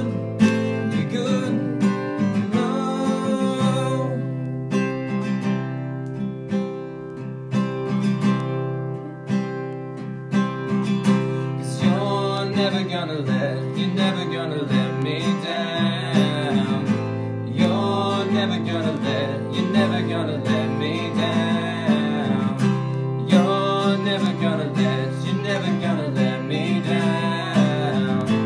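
Acoustic guitar strummed through an Em–D–C–G chord progression, with singing of a worship song over it.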